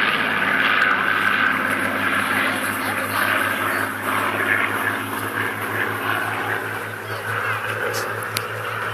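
Piston engines of two Supermarine Spitfires flying overhead, a steady propeller-aircraft drone that grows fainter through the middle and picks up again near the end.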